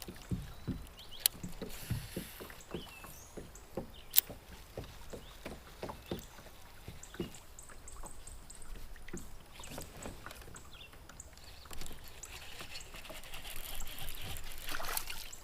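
Scattered light knocks and taps on a fishing kayak's hull as the angler shifts and handles his rod and gear, irregular and a few to the second.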